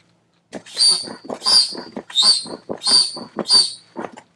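Air pump inflating a Sea Eagle SE-370 inflatable kayak's outer chamber. It gives five strokes, about one every 0.7 s, and each one is a loud whoosh of air with a whistling hiss as air is forced through the valve. The kayak is nearly at full pressure.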